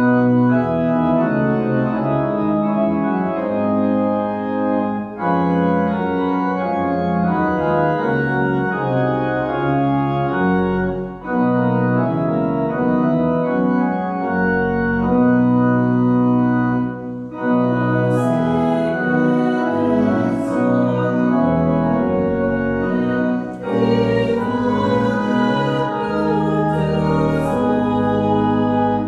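Church organ playing a slow hymn in held chords, phrase by phrase, with a brief break about every six seconds.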